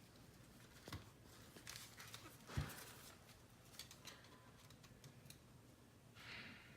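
Faint handling noises as a car navigation unit is worked on by hand: scattered small clicks and taps of plastic and tape, one sharper knock about two and a half seconds in, and a brief scratchy rustle of tape near the end.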